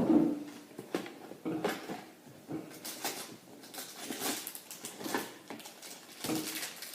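Irregular small clicks and crackles of hands handling things on a tabletop.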